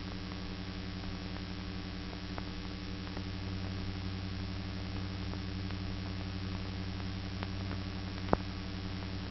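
Steady low hum and hiss of an old newsreel's optical soundtrack with no narration or music on it, dotted with faint clicks and one sharper pop near the end.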